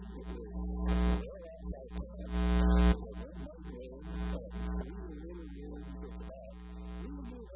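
Steady electrical mains hum under a man's indistinct, wavering voice, which swells louder about a second in and again around two and a half seconds.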